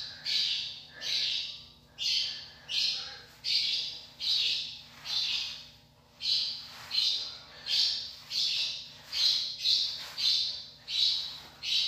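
Braiding hair being fluffed out by hand, a rhythmic rustling swish about every half second, with a short break about halfway through.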